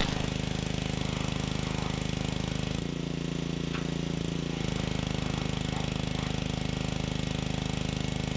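Gas-engine pressure washer running with a steady, evenly pulsing drone. Its note shifts for about a second and a half, three seconds in.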